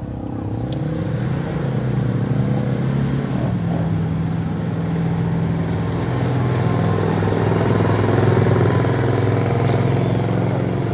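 Mud-racing vehicle's engine revving hard. Its pitch climbs about a second in and then holds high, shifting up and down as it runs under heavy throttle.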